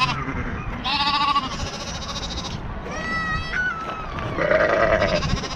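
Farm livestock bleating, about three separate calls, one of them quavering.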